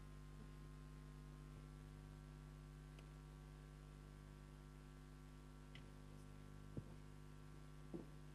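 Near silence: a steady electrical hum made of many even tones, with two faint short knocks in the last couple of seconds.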